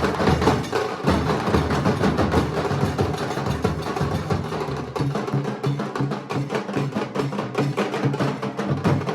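Nasik dhol drumming: a troupe beating large barrel dhol drums in a loud, fast, dense rhythm of strokes.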